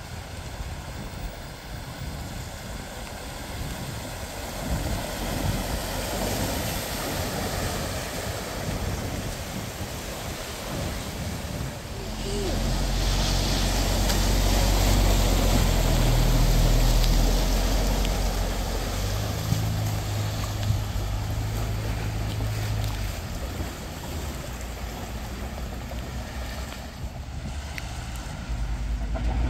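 An Audi car driving through deep floodwater: its engine running under load and water surging and splashing off its bow wave. This grows loud about twelve seconds in and fades over the following several seconds, against a steady wash of moving water and wind.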